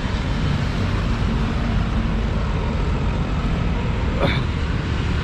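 Road traffic running steadily, a continuous low rumble with hiss over it. A brief, higher sound cuts through a little over four seconds in.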